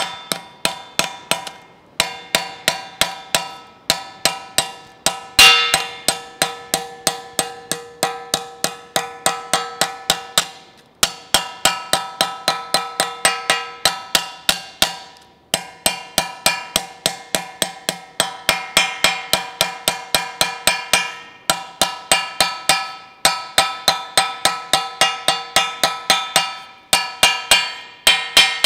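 Hand hammer tapping a folded lip of sheet steel flat to crimp it into a safe edge along a strip of replacement gutter. The blows come quickly, about four a second, in runs with short pauses, and each one rings with a metallic tone. One blow about five seconds in is louder than the rest.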